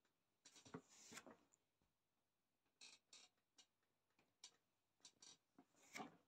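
Faint, short scratching and rustling sounds from the cat and the swivel office chair as the cat is played with on the seat. They come in small clusters, with a cluster about a second in and another, the loudest, near the end.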